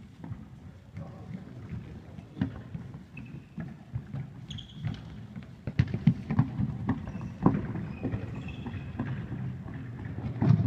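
Indoor football in an echoing sports hall: irregular thuds of the ball being kicked and bouncing, with running footsteps and short squeaks of trainers on the hall floor. The hardest kicks come about six seconds in, midway through and near the end.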